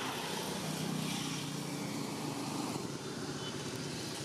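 Steady outdoor background noise of distant road traffic, with a low engine drone growing louder from about half a second in and fading near three seconds.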